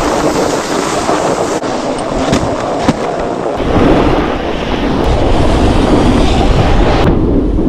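Snowboard scraping and sliding over hard-packed groomed snow while riding downhill, with wind buffeting the microphone. A little past three seconds in the sound turns heavier and deeper.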